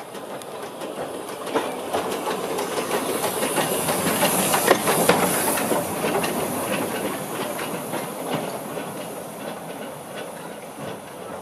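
Small tank steam locomotive running slowly past at close range, hissing steam with scattered clanks. It is loudest as it passes about five seconds in, then fades as it draws away.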